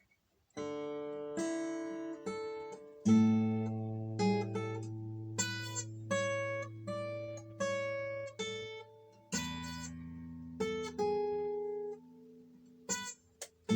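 Yamaha FG720SL steel-string acoustic guitar (solid spruce top, laminated nato back and sides) played solo in an improvised way: picked melody notes and chords over long ringing bass notes. The playing breaks off briefly near the end, with a couple of small clicks, then carries on.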